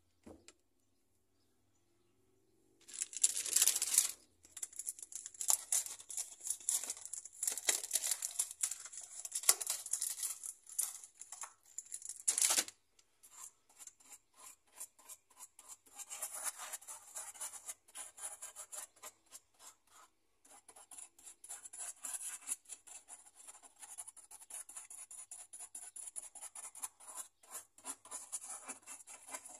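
Paintbrush scrubbing and dabbing paint onto rough expanding foam: a rapid run of scratchy brush strokes that starts about three seconds in, with a couple of brief pauses.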